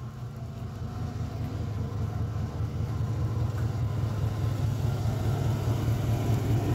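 A car engine running close by: a steady low rumble that grows gradually louder.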